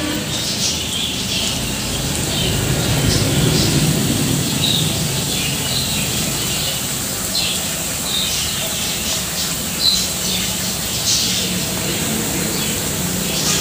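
Wheat-flour thattu vadai discs deep-frying in hot oil in an aluminium kadai: a steady sizzle with bubbling. Birds chirp now and then in the background.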